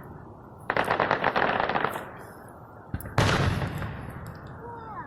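Fireworks going off: about a second in, a rapid crackling string of pops lasting about a second, then a single loud boom about three seconds in, fading into a rumble. Faint short whistles come near the end.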